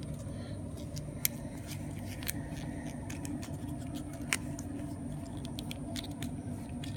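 Crisp clicks and creasing of thin card as a miniature printed paper box is folded by hand, a few sharp clicks spaced about a second apart, over a steady low hum.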